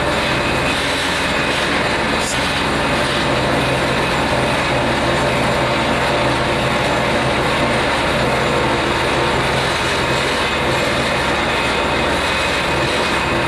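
Steady machinery noise with a low engine drone and a hiss, and no chuffing rhythm, as a steam locomotive is eased slowly along a low-loader trailer during unloading, held back by brakes.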